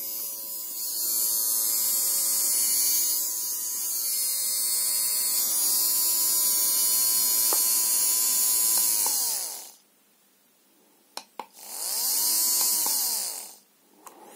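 Small brushed 12 V DC motor driven by a PWM speed controller. It ramps up smoothly with a rising whine and runs steadily with a high hiss for about nine seconds, then slows to a stop under the controller's soft stop. After a short quiet and two clicks, it ramps up again briefly and winds down once more.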